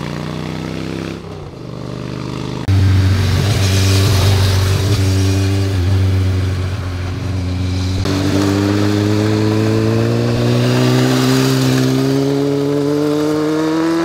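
Motorcycle engines on a winding road, in spliced clips: a steady engine note that jumps suddenly louder about three seconds in, then from about eight seconds an engine accelerating, its pitch climbing steadily for some six seconds.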